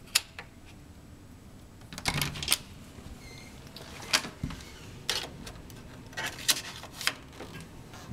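Hotel room door and lever handle being worked on the way in: a series of sharp clicks and knocks from the latch, handle and door. A faint short high beep comes about three seconds in.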